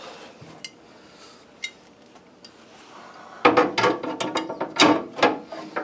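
Steel drift cutter blade knocking and clicking against the snowblower's steel side panel as it is held up and lined up with the bolt holes. After a few faint taps, a quick run of sharp metal clicks comes about three and a half seconds in.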